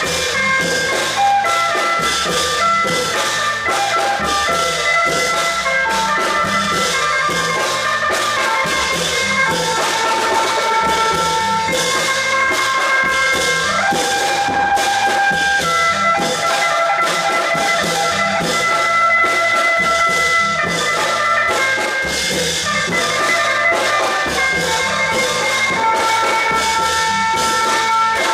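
Thai klong yao long-drum band playing: a fast, even beat of drums and cymbals under a melody of held notes that changes every second or two.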